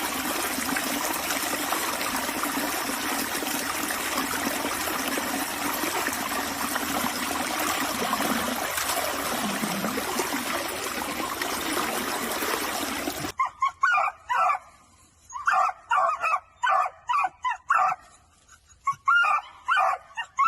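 A steady rushing hiss for about thirteen seconds. It cuts off suddenly, and a dog barks in quick, repeated short barks.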